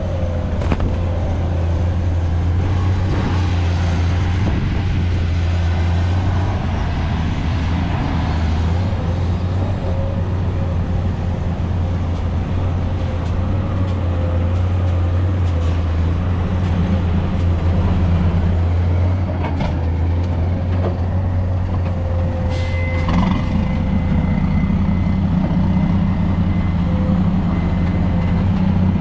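Heavy truck engine running with a steady low drone; about two-thirds of the way through a second, higher engine note comes in and holds.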